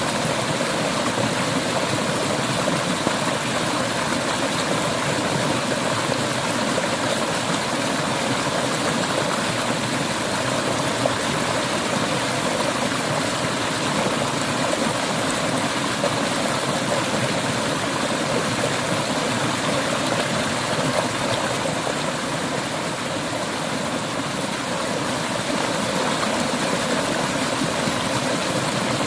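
Clear mountain river water flowing and rushing over stones in a steady, full rush.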